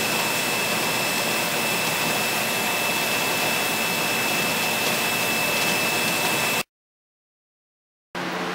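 Steady hiss of steam venting from a stovetop pressure canner, with a thin high whistle running through it. It cuts off abruptly about seven seconds in, and after a second and a half of dead silence a quieter steady hum comes in.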